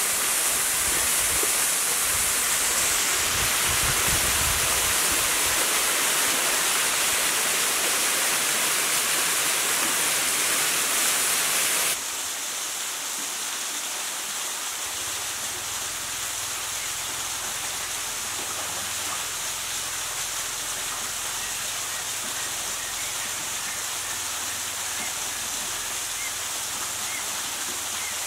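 Steady rush of running water, of a small waterfall or cascade into a rocky pool. About twelve seconds in it cuts abruptly to a quieter, softer water sound.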